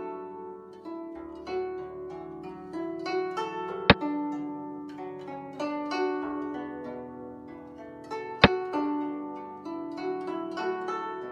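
Plucked-string background music, with a sharp click twice, about 4 s and 8.5 s in, as the animated board sets a chess piece down for each move.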